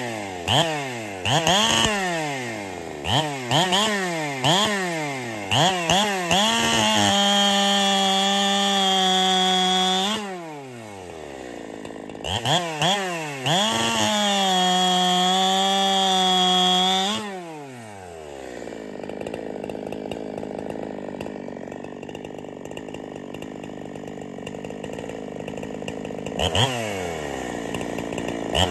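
Husqvarna 372 clone two-stroke chainsaw, with C83 chain on an 8-pin sprocket, blipped up and down several times, then held at steady full throttle twice for about three seconds each while cutting through a log. In between it drops back, and near the end it idles for several seconds before revving again.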